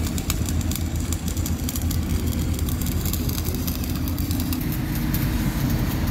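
Arc welding on a steel sheet pile, crackling and sputtering irregularly over the steady low running of an engine.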